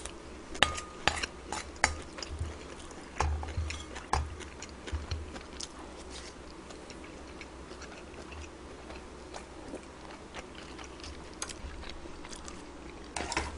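Eating sounds: a metal spoon clicks against a dish several times in the first two seconds, then there are low chewing thumps and occasional faint clicks.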